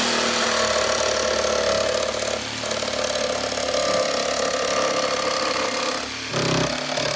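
Ryobi cordless jigsaw running and cutting through a van's interior wall panelling, a steady buzzing saw stroke with a brief change in tone about six seconds in.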